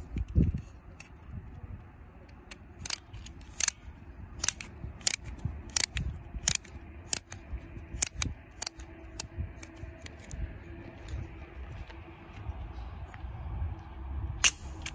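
Sharp plastic clicks, uneven at about two a second, from a green plastic propeller disc being fitted and worked onto a toy spinning-top shooter, then one louder snap near the end as the shooter fires it. Low wind rumble on the microphone underneath.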